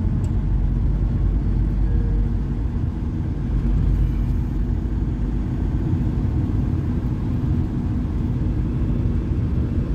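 Steady low rumble of a road vehicle on the move, engine and tyre noise heard from inside the cabin.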